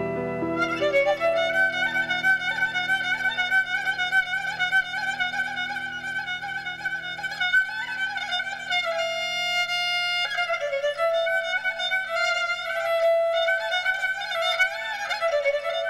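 Kemancha, the Caucasian bowed spike fiddle, playing an ornamented, wavering melody in its upper register, with one long held note about two-thirds of the way through. Soft sustained keyboard chords sit underneath.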